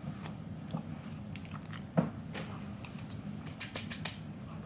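A person chewing food close to the microphone, with small crisp clicks throughout and a sharp knock about two seconds in.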